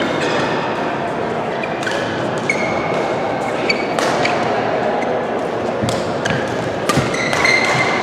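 Badminton rackets hitting a shuttlecock: sharp clicks at irregular intervals, with short squeaks of court shoes on the sports floor, over the steady noise of a large hall with other games going on.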